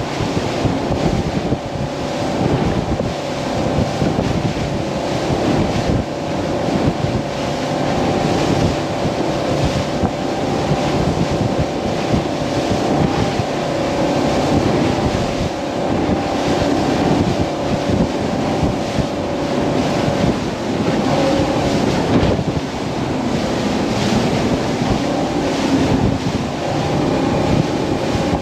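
A boat's outboard engine running under way through choppy water, with a steady engine drone under hull splash and heavy wind buffeting the microphone.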